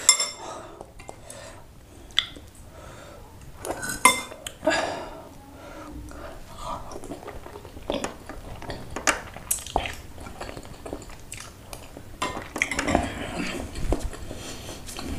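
A metal spoon and fork clinking and scraping against a ceramic bowl of noodle soup, with noodles being slurped and eaten between the clinks.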